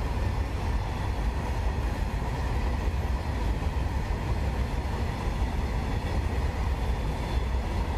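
Long freight train of BOXN open wagons rolling past, a steady rumble of wheels on the rails.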